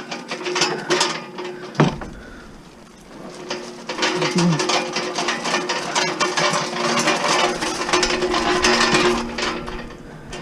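Rapid clicking and rattling of scrap being handled, with one sharp knock about two seconds in, over a steady low hum.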